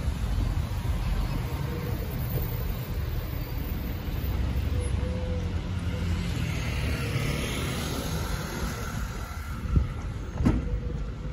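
Steady low rumble of city street traffic, with a vehicle passing around the middle and a couple of short knocks near the end.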